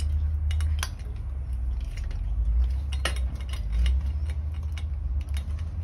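Light clicks and metallic clinks as a bicycle brake lever and throttle assembly is worked loose and slid along the handlebar, with a few sharper knocks about a second in and about three seconds in, over a steady low rumble.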